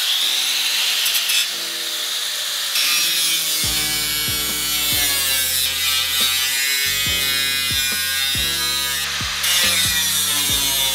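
Angle grinder cutting through the steel sheet metal of a car hood: a steady, high whine with grinding noise. Background music with a beat comes in about four seconds in.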